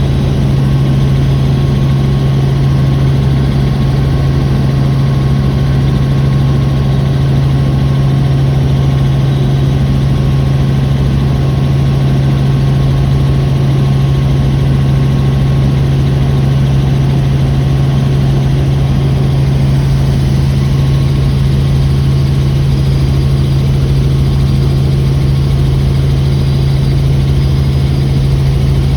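Helicopter in flight: a steady, loud drone of engine and rotor, with a strong low hum that does not change.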